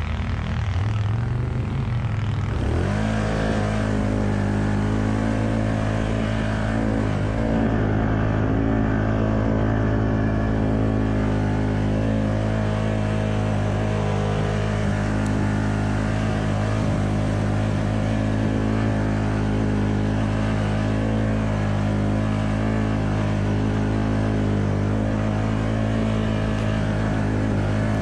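ATV engine running under load as the quad climbs slowly through snow. Its pitch rises about two to three seconds in, then holds steady.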